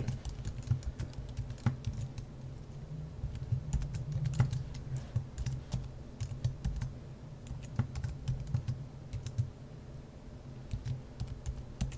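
Typing on a computer keyboard: irregular runs of keystroke clicks as a password is keyed in and then typed again to confirm it.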